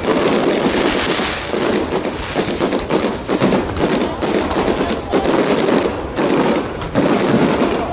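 Fireworks display: a dense, unbroken run of many overlapping bangs and crackles from bursting shells.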